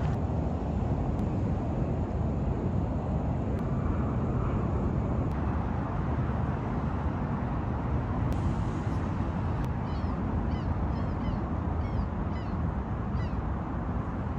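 Steady low outdoor rumble from the waterfront. A bird chirps several times in short, high calls near the end.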